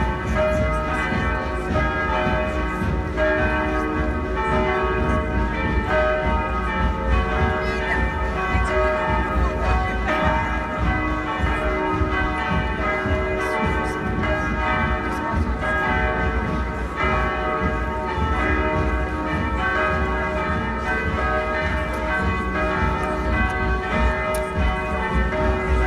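Youth marching band playing a tune, the melody carried by bright bell-like notes over a constant low undertone.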